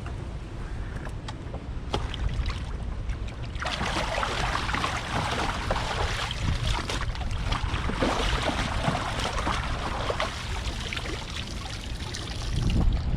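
Water splashing and pouring, a dense hissing spatter starting about four seconds in and easing off near the end, over a steady low rumble of wind on the microphone.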